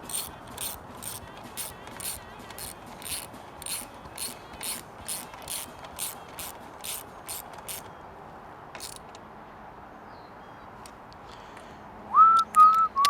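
Hand ratchet clicking about twice a second for some seven seconds, driving a bolt into a tapped mounting hole. A few short whistled notes near the end.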